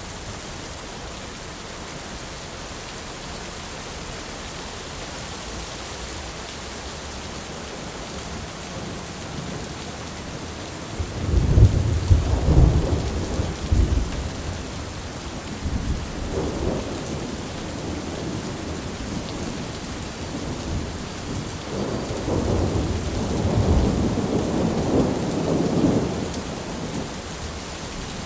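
Steady heavy rain with thunder: a loud crack and rumble about eleven seconds in, a smaller peal a few seconds later, and a longer rolling rumble near the end.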